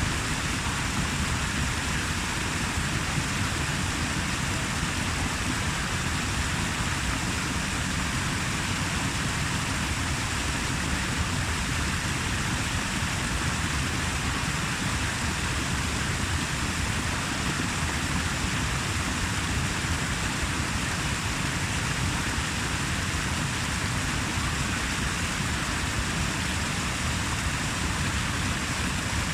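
Steady rushing water, an even unbroken noise.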